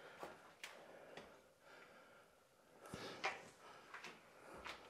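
Faint footsteps and scuffs on a rubble-strewn plank floor, a few scattered soft knocks, with some breathing.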